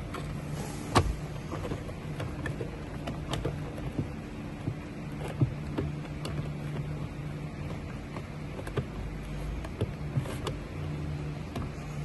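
Scattered light clicks and knocks of plastic steering-wheel parts being handled and fitted back into place, over a steady low hum.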